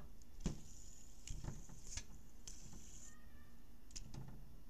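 A handful of light clicks and knocks from a plastic LED fidget spinner being handled, with a faint high hiss for the first few seconds.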